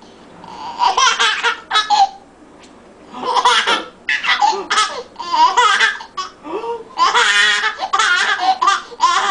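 A baby laughing hard in repeated high-pitched bursts, with a short lull about two seconds in and a long run of laughter near the end.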